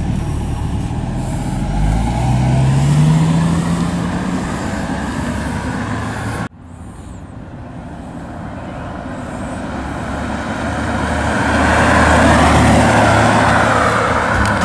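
A 1991 Jaguar XJS's 5.3-litre V12 engine and exhaust revving up, its pitch rising, then after a cut, the car driving past on the move, engine and road noise swelling to a peak and easing off as it pulls away.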